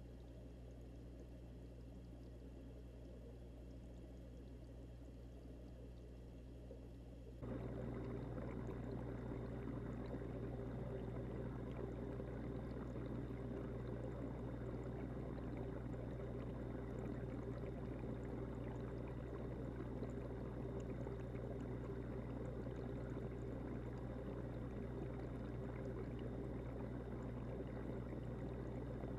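Aquarium water noise picked up underwater: a steady low hum under a bubbling, pouring hiss from the tank's air bubblers and circulating water. It gets suddenly louder about seven seconds in.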